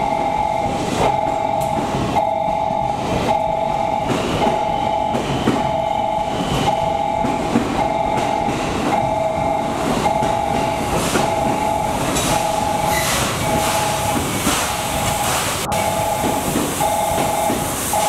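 A two-tone warning chime repeats about once a second over the rumble and clatter of a steam-hauled train of passenger coaches creeping along the platform. Steam hiss builds in the second half as the steam locomotive draws near.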